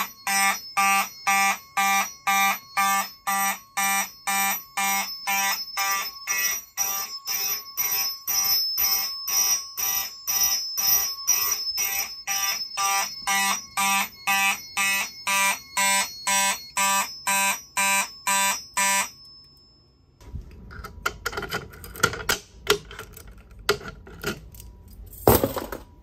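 Fire alarm system horns sounding in an even pulse, about two blasts a second, then cutting off about 19 seconds in. After that come rustling and movement noise, with a sharp knock near the end.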